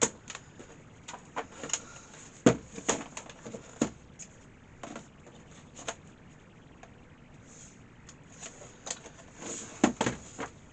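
Scattered clicks and light knocks of a laptop being handled while someone tries to power it on, with the two loudest knocks about two and a half seconds in and near the end.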